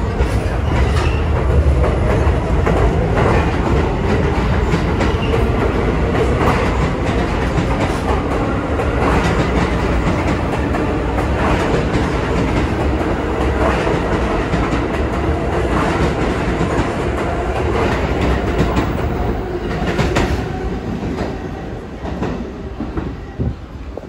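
R46 subway train pulling out of the station and passing close by, its wheels clacking over the rail joints as it gathers speed. The rumble eases off near the end as the last cars go by.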